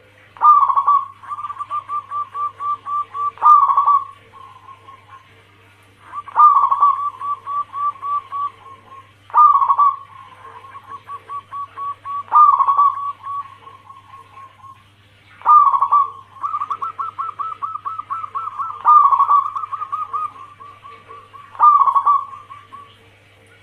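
Zebra dove (perkutut) cooing. About eight phrases come roughly every three seconds, each a loud opening note followed by a quick, fading run of short coos. A faint steady low hum lies underneath.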